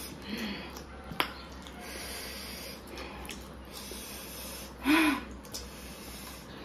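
Two people eating by hand, with noisy sniffing and heavy breathing through the nose, as when eating very spicy food. A light click about a second in, and a short vocal grunt about five seconds in, the loudest sound.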